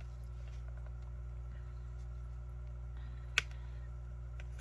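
Quiet room tone with a steady low hum, broken by one short sharp click about three and a half seconds in.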